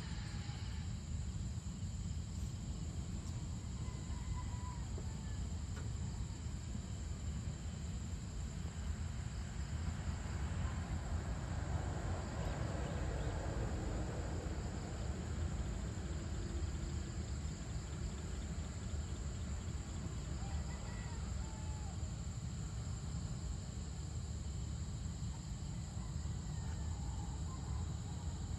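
Dusk outdoor ambience: a steady high insect chorus over a low, even rumble, with a few faint short chirps.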